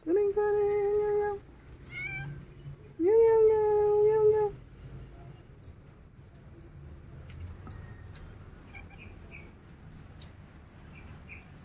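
Domestic cat meowing twice: two long, loud meows held at a steady pitch, each about a second and a half, with a pause of about a second and a half between them.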